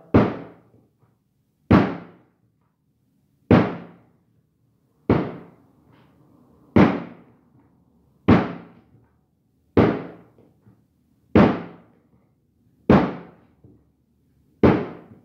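Pandesal bread dough being kneaded by hand, lifted and slammed down onto a floured table over and over: about ten heavy slaps, evenly spaced roughly every second and a half, each dying away quickly.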